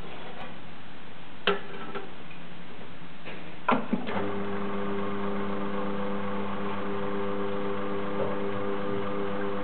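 Two sharp clinks about two seconds apart as small espresso glasses are set on the metal drip grate. About four seconds in, the Faema E61 Legend's pump starts and runs with a steady electric hum as an espresso shot begins to brew.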